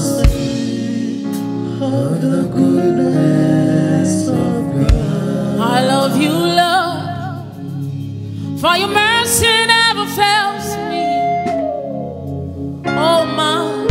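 Live gospel worship song: a woman sings long, wavering phrases into a microphone over a held chordal accompaniment, with a few low thumps.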